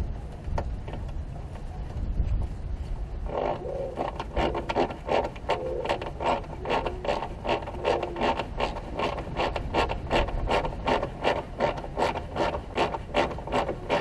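Hand ratchet wrench clicking steadily, about three clicks a second, as a starter motor mounting bolt is run in; the clicking starts about three seconds in.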